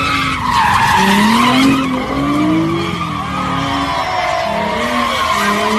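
A car spinning donuts: its tyres squeal without a break, loudest about a second in, while the engine revs up and down underneath.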